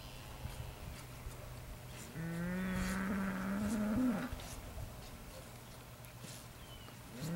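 Fleckvieh Simmental calf bawling: one drawn-out moo of about two seconds, starting about two seconds in and rising a little in pitch before breaking off. A second moo begins right at the end.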